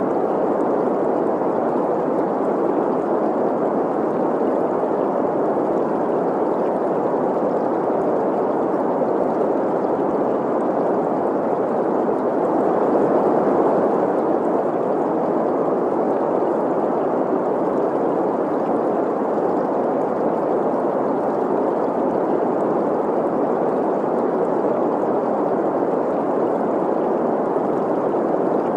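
Steady green noise, a synthetic hiss centred in the middle of the range, blended with a running stream's gurgle. It is even throughout and swells slightly about halfway through.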